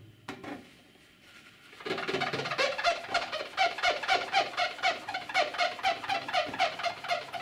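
Paper towel rubbed hard over a CO2 laser cutter's orange focusing lens in quick back-and-forth strokes, squeaking on each stroke, several a second. It starts about two seconds in. The lens is being scrubbed clean of a burnt-on film.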